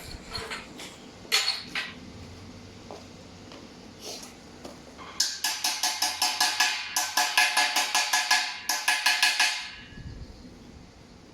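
A few separate metallic knocks, then a fast, even run of sharp strikes on steel, about five a second, each one ringing, for some four and a half seconds before it stops.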